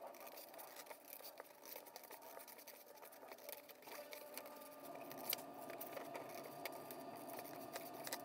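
Scissors cutting along a spiral line in a sheet of construction paper, a quiet run of many small snips and clicks as the blades close through the paper.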